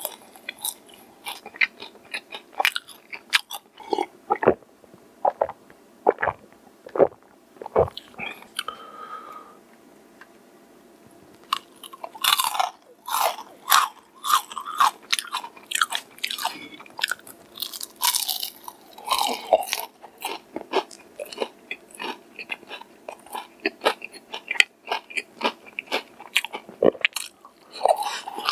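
Close-miked biting and chewing of crispy fried chicken: crackly crunches of the battered coating, with a brief quiet pause about ten seconds in, then a dense run of crunching.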